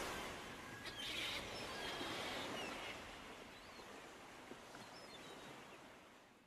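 Faint outdoor background noise with a few short high chirps, fading out to silence near the end.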